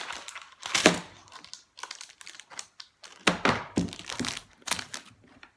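Clear plastic packaging being handled, crinkling and cracking in sharp bursts: one loud crack about a second in, then a cluster of crinkles and cracks between about three and five seconds.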